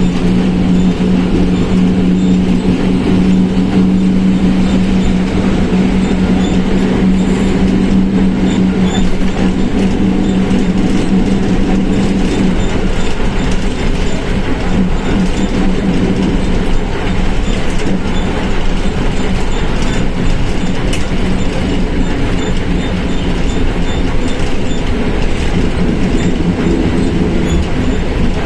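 Volkswagen 17.230 OD bus running on the road, heard from inside: a steady drone from the engine and drivetrain under a loud rumble and body rattles. A strong hum holds steady for about the first twelve seconds, then fades and comes back more weakly near the end. The uploader puts the growl down to the transmission.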